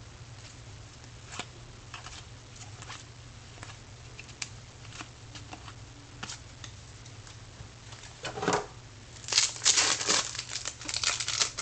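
Trading cards being handled and flipped through, with scattered light flicks and ticks, then about two seconds of louder crinkling and rustling near the end.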